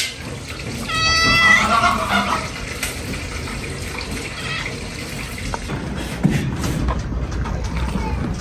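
Domestic cat meowing once, a single call of about a second, starting about a second in.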